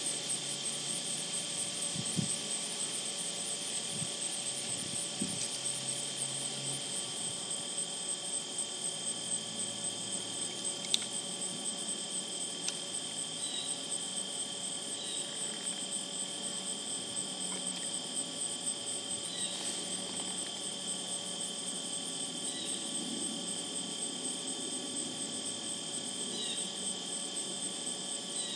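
Steady outdoor background of continuous high-pitched trilling, typical of a late-summer insect chorus. Faint short chirps come every few seconds, and a low hum fades out after the first several seconds.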